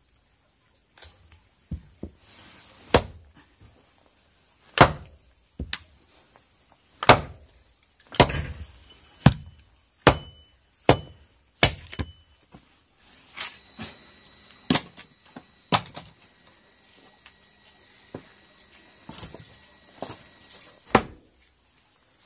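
Small axe chopping firewood, with logs knocking as they are handled at the woodpile: sharp wooden thwacks and knocks at uneven intervals, about one every second or so.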